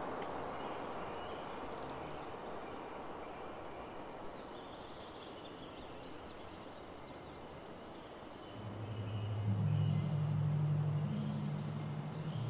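Synthesized drone from a Pure Data Automatonism patch. A soft hiss-like wash with faint high wavering tones slowly fades, then about eight and a half seconds in, low sustained tones come in and swell, stepping between a few pitches.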